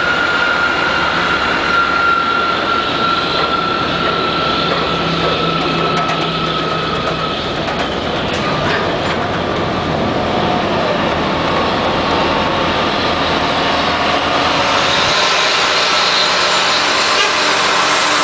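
Heavy-haul truck convoy with a long multi-axle trailer rolling past: a steady drone of many tyres and engines, with a thin whine that slowly falls in pitch over the first half.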